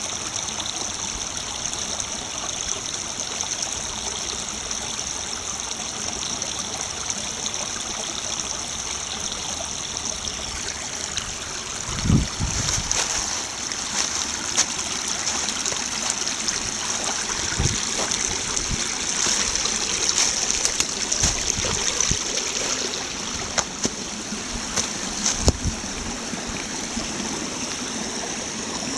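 Small snow-melt stream babbling and trickling over gravel, a steady rush of water. A few dull low thumps come in the second half.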